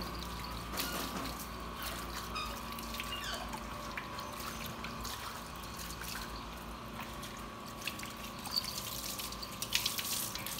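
Water from a garden hose running and splashing over a wet, shampooed cat and onto a tiled floor as the shampoo is rinsed off, with sharper splashes near the end.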